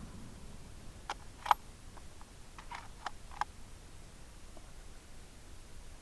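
A few faint, sharp clicks spread over about two and a half seconds, the loudest about one and a half seconds in. These are typical of the bolt of a .308 bolt-action rifle being worked between shots.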